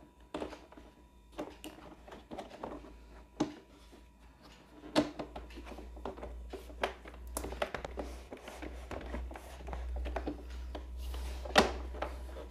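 Plastic panels of a Napolly locker box being handled and snapped together: a string of irregular clicks and knocks, with sharper ones about five seconds in and near the end.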